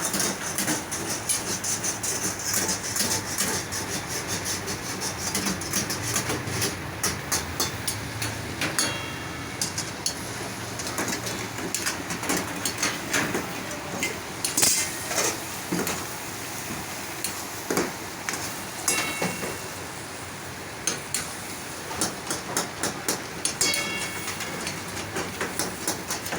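Metal kitchen utensils and cookware clattering: rapid knocks and scrapes in clusters of several a second, with a few short ringing metal strikes.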